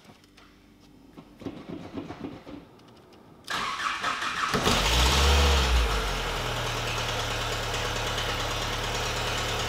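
First-generation Skoda Fabia's engine being started: the starter cranks briefly about three and a half seconds in, the engine catches and flares up, then settles into a steady idle.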